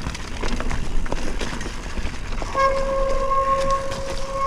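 Commencal Meta Cromoly steel hardtail mountain bike rolling fast over rough forest singletrack: a rattling, clattering ride with many sharp knocks from the bike. A little after halfway, a steady high-pitched whine from the bike sets in and holds.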